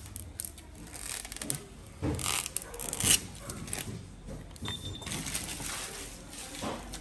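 Hands working on a scooter's cockpit plastics: irregular clicks, knocks and rustles, busiest from about two to three seconds in. A brief high beep sounds about two-thirds of the way through.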